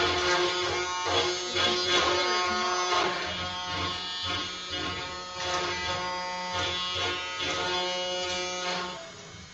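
SilverBack benchtop CNC router carving a wooden board: the spindle runs steadily while the bit cuts. The pitch and loudness of the machine's tones shift as the head moves, and it goes quieter about nine seconds in.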